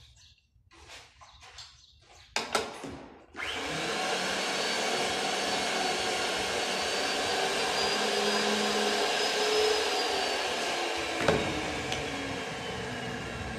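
A couple of sharp metal clicks, then a Rothenberger electric pipe threading machine starts about three seconds in and runs steadily, its motor and gearbox giving a high whine while it threads pipe. There is a single knock a little past the middle, and the whine sinks slightly in pitch near the end.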